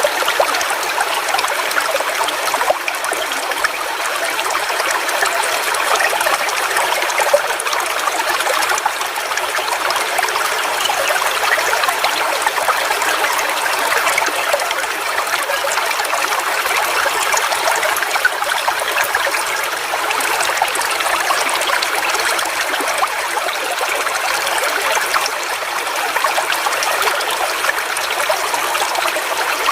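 Waterfall: water falling and splashing in a steady, unbroken rush, mostly hiss and spatter with little deep rumble.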